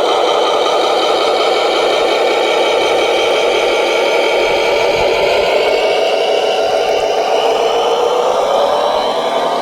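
Small electric motors and gearboxes of a radio-controlled construction model running with a steady whine and rattle, the pitch shifting near the end.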